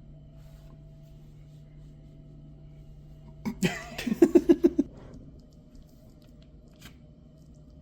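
A person's short burst of laughter: a sharp intake or outburst, then a quick run of about six pulsed voiced sounds lasting about a second, over a faint steady room hum.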